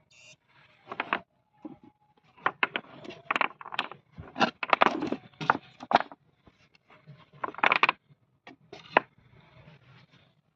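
Irregular scratching, rustling and clicking noises in short, uneven bursts with brief gaps between them.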